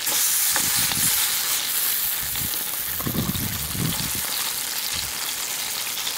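Country ham slices sizzling in a small frying pan on a camp stove, with a steady frying hiss. A metal fork scrapes and knocks in the pan as the slices are turned.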